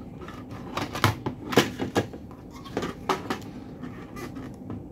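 Sharp clicks and knocks, about eight in the first three seconds and then stopping, as a Mitsubishi FR-D700 variable-frequency drive's circuit board is handled and lifted out of its plastic housing.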